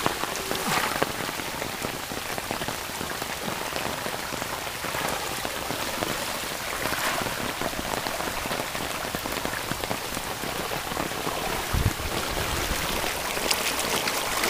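Heavy tropical-storm rain pouring down steadily, a dense hiss of drops hitting the ground and surfaces. A brief low thump about twelve seconds in.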